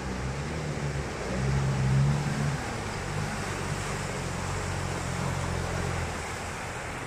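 Nissan Terrano off-roader's engine working hard under load as the truck ploughs through a mud hole. It revs up about a second in, is loudest around two seconds, then holds steady and eases a little near the end, over the churning slosh of mud and water around the tyres.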